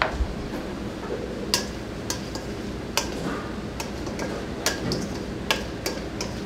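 Roasted onions and squash tossed with dressing in a stainless steel mixing bowl shaken by hand: a sharp tick about every half second, over a steady low hum.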